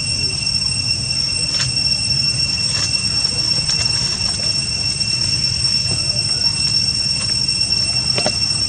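Steady, high-pitched drone of cicadas with a low rumble underneath, and a few faint clicks.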